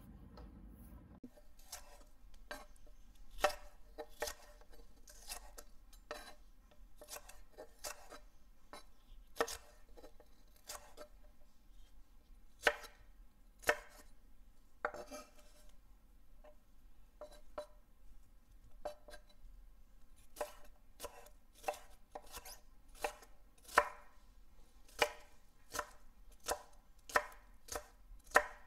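Chef's knife chopping peppers on a wooden cutting board: a run of sharp knocks of the blade on the board, about one or two a second, with softer strokes between them.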